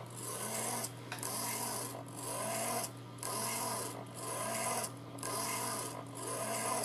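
Small hobby micro servo's motor and gear train whirring as it sweeps back and forth, about once a second, with a brief pause at each reversal. Within each sweep the pitch rises and falls as the servo speeds up and slows down, following a slow sine-wave control signal.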